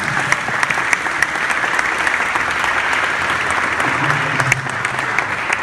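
A crowd of guests applauding, with steady dense clapping throughout.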